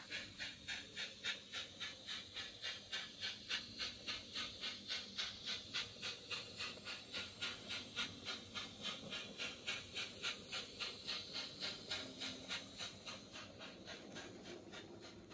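N-gauge model train rolling along the track, its wheels clicking rhythmically over the rail joints at about three clicks a second, fading away over the last few seconds.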